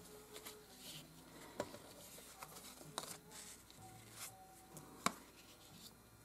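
Faint handling of paper and cardstock on a work surface, with a few light taps, the sharpest about five seconds in.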